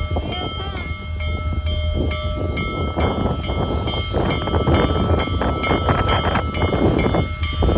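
Union Pacific Big Boy 4014, a 4-8-8-4 articulated steam locomotive, passing at low speed: a low rumble, with loud bursts of steam exhaust starting about three seconds in. A bell rings steadily about twice a second throughout.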